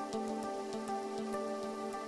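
Soft background music of held, sustained tones, with many quick light ticks scattered through it.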